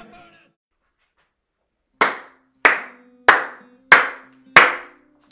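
A man clapping his hands in a steady rhythm: five sharp claps about two-thirds of a second apart, starting about two seconds in, with a sixth right at the end, each followed by a short echo.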